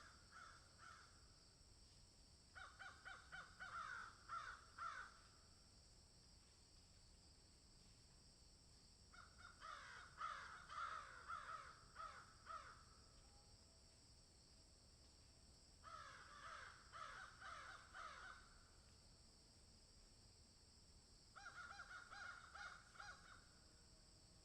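Bird calls in four bouts of a few seconds each, each bout a quick run of harsh repeated calls, over a steady high hiss.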